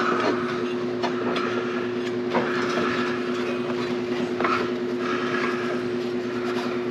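A rubber drive belt being pushed and fed through a mower's frame, with intermittent rubbing, scraping and small knocks against the metal. A steady low hum runs underneath.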